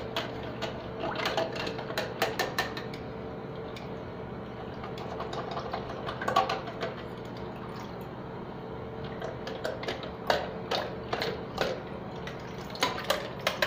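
Hard plastic toy knocking and scraping against a porcelain toilet bowl as a hand fishes it about in the water, with small splashes. A steady low hum runs underneath.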